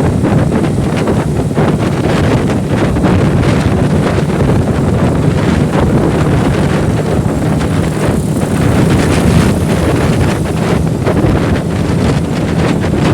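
Wind buffeting the microphone of a moving motorcycle, heavy and gusty, with the motorcycle's engine running steadily underneath.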